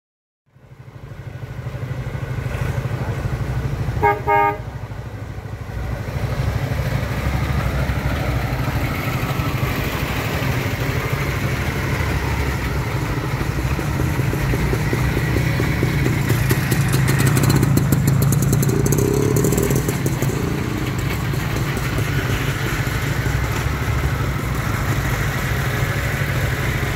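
Engines of classic cars running as they pull away slowly one after another, with two short car-horn toots about four seconds in.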